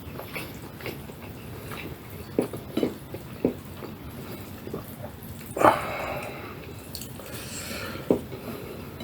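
Close-up eating sounds: chewing with a few short wet mouth smacks and clicks, the loudest a little past halfway.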